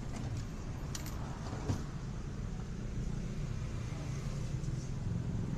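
Steady low rumble of a motor vehicle's engine, with a couple of short light clinks about a second in.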